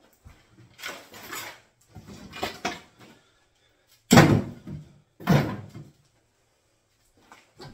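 Old kitchen cabinets being ripped out: a run of separate knocks, scrapes and creaks of wooden units and panels being pulled and broken apart, the loudest about four seconds in.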